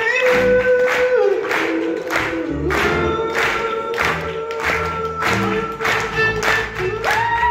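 Live acoustic band music: two acoustic guitars strummed in a steady, quick rhythm, with violin, double bass and voices holding a long sustained melody.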